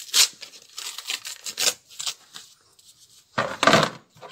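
Paper flour bag crinkling and rustling as it is handled and opened, a run of quick crackles, followed near the end by a louder, fuller rubbing rustle.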